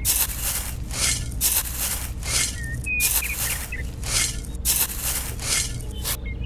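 A tiny toy shovel scraping and scooping into a pile of dark granules and tipping them into a small metal bowl: short gritty scrapes, roughly two a second.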